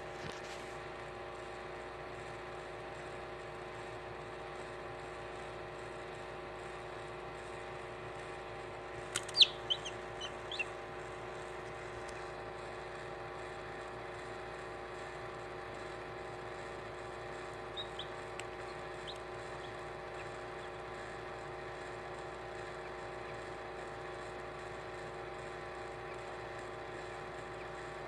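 Newly hatched chick peeping: a quick run of short, high peeps about a third of the way in and a few fainter ones a little past halfway, over the incubator's steady hum.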